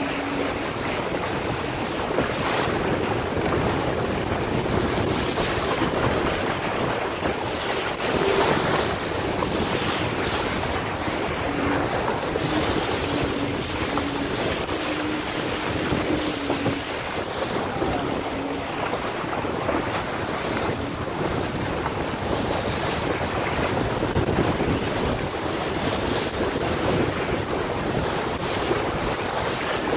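Water rushing and splashing along the hull of a Laser sailing dinghy sailing fast through chop in strong wind, with wind buffeting the microphone.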